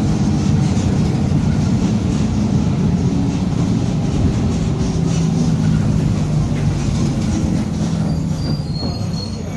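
Mercedes-Benz OF-1722M bus under way, its differential growling with a whine that shifts in pitch over the running of the engine. The sound eases off near the end, where a faint high squeal comes in briefly.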